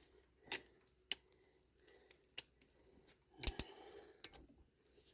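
A few sharp clicks and knocks at uneven spacing, a double one about three and a half seconds in, as gear or tools are handled and moved.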